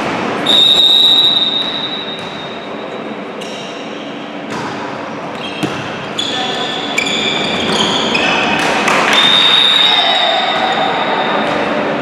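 A referee's whistle blown in a long blast, then the hits of a volleyball and short squeaks of shoes on a gym floor during a rally, and a second long whistle blast near the end.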